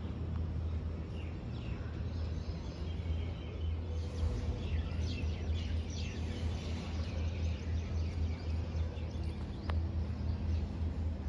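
Birds chirping over a steady low rumble of outdoor background noise, with the chirps busiest in the middle and a single sharp click near the end.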